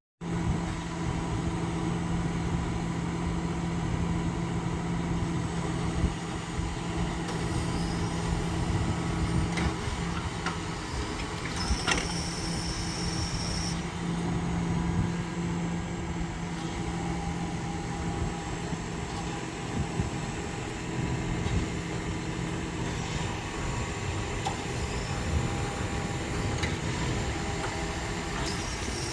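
Tractor engine running steadily, with a few short sharp clicks.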